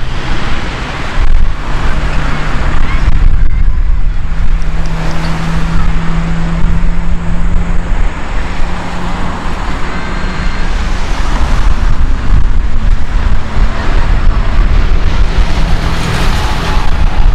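Airbus A340-300's four CFM56-5C turbofan engines at takeoff power, a loud, steady rumble through the takeoff roll, lift-off and initial climb, with a low steady hum through the first half.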